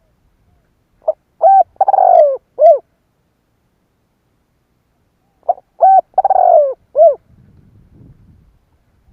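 Spotted dove cooing: two phrases about four seconds apart. Each phrase is a short note and a coo, then a longer rolling coo that falls in pitch, and a final coo.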